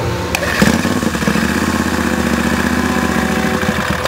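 A drag-racing lawnmower's engine being turned over by a handheld starter held to the engine: a steady whirring hum starts after a click about half a second in and cuts off after about three seconds, over a constant background of engine noise.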